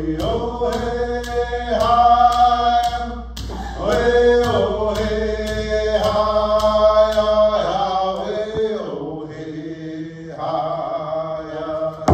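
Two men singing a Mi'kmaw song together in a chant-like style with long held notes. A steady percussion beat of about three strokes a second runs under the first few seconds, then the voices carry on with only a few strokes. The singing drops low for about a second before a final phrase.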